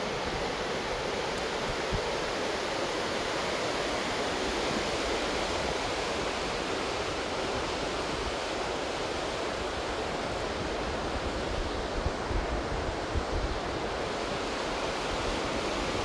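Steady rushing of fast-flowing alpine water, with a low wind rumble on the microphone.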